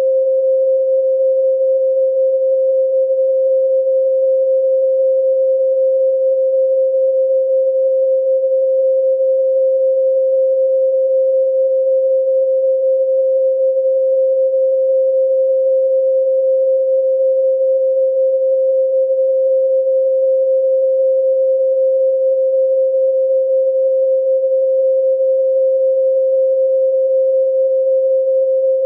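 A steady pure sine tone at 528 Hz, one unchanging pitch with no overtones.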